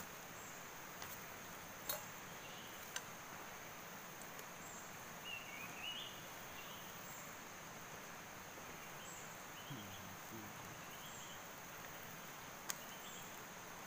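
Steady high insect drone with a few short bird chirps over it, and a handful of sharp metal clinks from a spoon against a cooking pot and plate.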